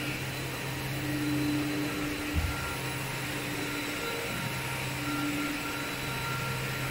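Steady machinery drone in a cookware sanding and polishing factory: a low hum with an even hiss over it, and a brief low thud about two and a half seconds in.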